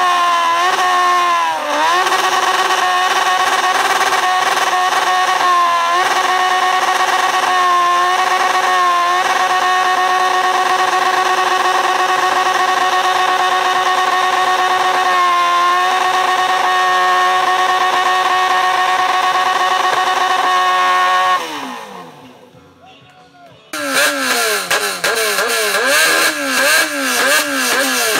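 Motorcycle engine held at high revs during a smoky burnout, with a few brief dips in pitch; about three quarters of the way through the revs fall away. After a short lull, an engine is blipped in quick repeated revs.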